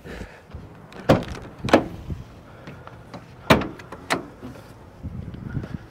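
Ram ProMaster cargo van doors being unlatched and opened: four sharp metal clunks in two pairs, with quieter handling noise between them.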